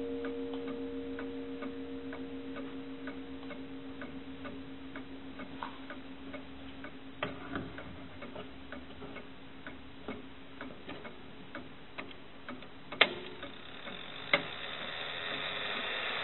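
Victorian English bracket clock's movement ticking steadily, about two ticks a second. Two louder, sharper clicks come a little over a second apart toward the end.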